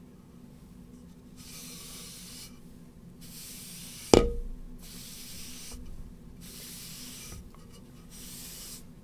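A rag wiping a wipe-on finish along a walnut board: a series of swishing strokes, each about a second long with short pauses between. About four seconds in there is one sharp knock, the loudest sound.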